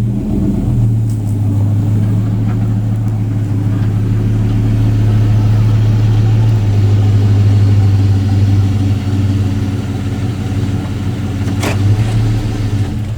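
Pickup truck engine running at low revs as the truck is backed up, a steady low drone that grows a little louder midway. A sharp click comes near the end, and the engine sound stops right at the end.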